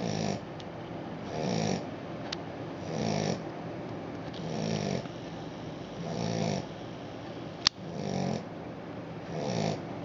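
Australian Shepherd puppy snoring in a steady rhythm, about one snore every second and a half, each a brief low buzz. A sharp click sounds once, about three-quarters of the way through.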